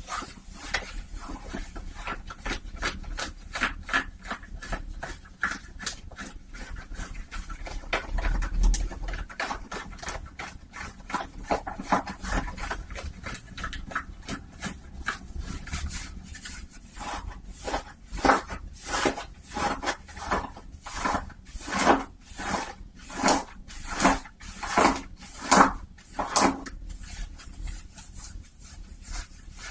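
Fabric rubbed and scratched close to the microphone as an ASMR trigger, in quick dense strokes at first. About halfway through, the strokes turn slower and louder, roughly three every two seconds, and ease off near the end.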